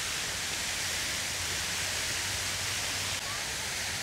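Steady hiss of background noise with no distinct event, and a slight break a little after three seconds.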